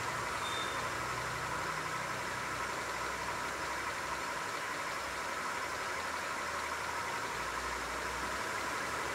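Steady, even hiss with no distinct strikes in it.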